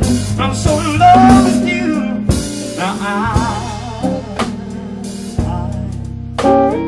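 Slow blues ballad: drum kit and bass under a wavering lead melody line, sung or played.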